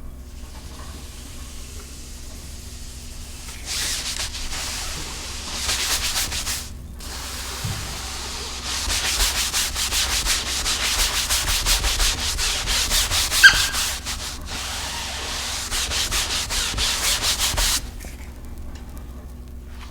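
Rapid rhythmic rubbing strokes of handwork against a surface, coming in bouts and building to a fast, steady run of strokes in the second half, with one sharp click about halfway through.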